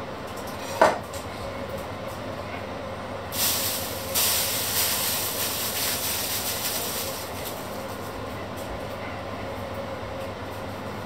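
A kitchen knife set down on a wooden cutting board with one short knock about a second in. A few seconds later comes a hiss that fades out, over a steady low hum.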